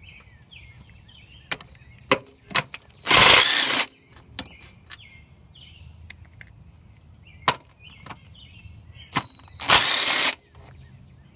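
Impact wrench hammering out bolts in two short bursts, about three and ten seconds in, with scattered clicks and knocks of the tool and socket between them. The bolts being run out hold the clutch fluid reservoir's bracket.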